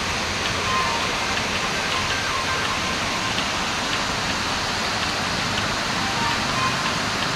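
Steady rush of a waterfall: an even, unbroken wash of water noise.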